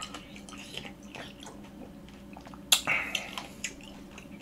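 Close-miked chewing of soft food, wet squishy mouth sounds with small clicks, and a sharp click about two and a half seconds in that is the loudest moment.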